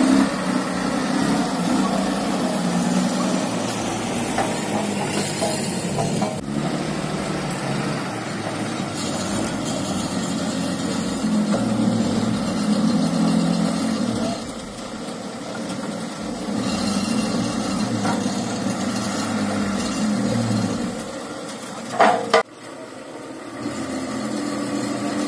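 Old forklift's engine running and working, its speed rising and falling as it maneuvers. Near the end there is a short loud clatter, after which the engine runs quieter.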